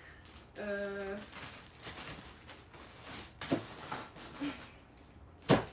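Rustling and handling sounds as items are moved about, with a short held hum about half a second in and one sharp knock near the end, the loudest sound.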